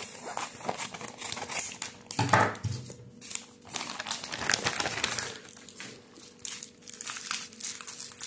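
A plastic postal mailer crinkling as it is cut open with scissors and handled, with many small crackles. Near the end the bubble-wrapped packet from inside rustles in the hands.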